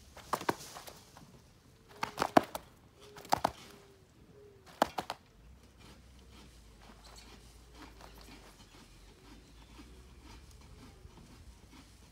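A landed fish being handled on a wet mat: a few sharp slaps and knocks in the first five seconds, the loudest about two and a half seconds in, then only quiet handling.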